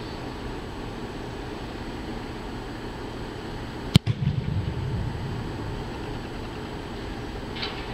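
A kicker's foot striking an American football on a field goal kick: one sharp thud about four seconds in, followed by about a second of low booming echo from the large indoor practice hall. A steady background hum runs underneath.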